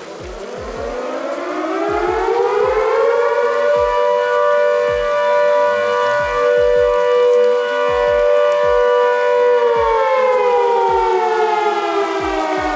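Town siren sounding at midday, marking noon. It winds up in pitch over the first few seconds, holds a steady two-note wail, then starts to wind down about ten seconds in.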